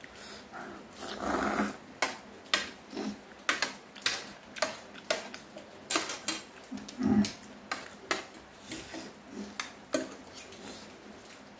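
Close-miked eating of instant noodles in gravy: slurping and chewing with a run of short, wet mouth smacks, one or two a second, and now and then a steel spoon or fork touching the plate.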